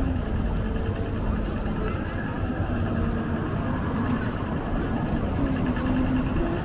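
Busy city street ambience: a steady low rumble of motor traffic, with faint voices of passers-by in the background.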